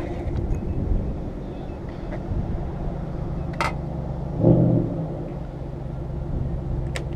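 Steady low engine hum, as of an idling motor vehicle. Two sharp clicks come about three and a half seconds apart, and a brief dull thud falls between them.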